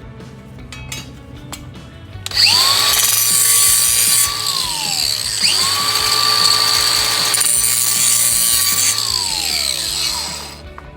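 Power drill run twice: the motor whirs at a steady pitch for a couple of seconds, winds down when released, then starts again about halfway through and winds down once more near the end.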